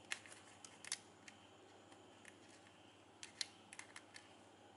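Faint, scattered crinkles and ticks of glossy ribbon being handled as its end is pushed through a loop, the loudest tick about three and a half seconds in.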